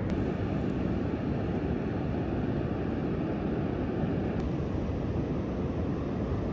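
Steady low rumble of ocean surf and wind buffeting the microphone, with a faint click just after the start and another past the middle.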